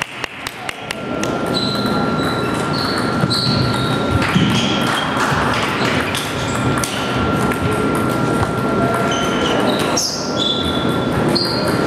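Celluloid-type table tennis balls clicking off bats and tables in a large echoing hall, with a quick run of ball bounces in the first second and scattered short squeaks. A faint steady whine runs under most of it.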